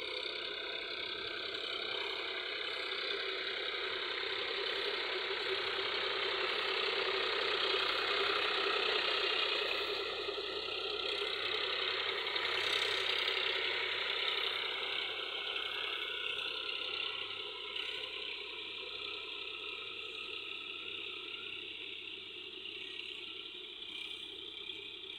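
A tractor working a flooded paddy field: the engine runs steadily under a dense mechanical clatter from the tillage gear churning the wet soil. The sound grows louder for the first eight or nine seconds, then slowly eases off.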